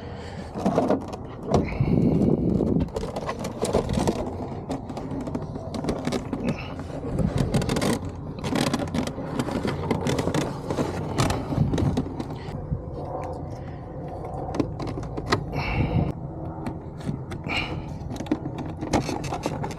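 Hands working a pickup truck's plastic interior door panel loose: irregular clicks, knocks and rattles of plastic and metal over a low steady rumble.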